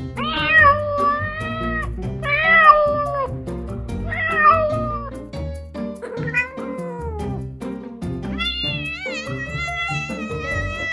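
A cat meowing, four separate calls about two seconds apart, over background music. From about eight seconds in a long, wavering note is held.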